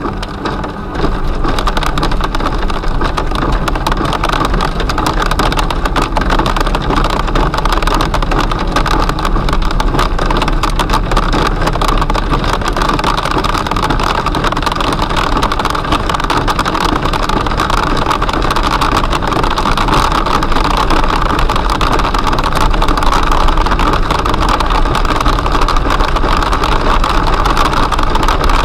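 Marble-sized hail and rain drumming on the car's roof and windscreen in a dense, continuous patter of impacts, over tyre and road noise. It turns heavier about a second in.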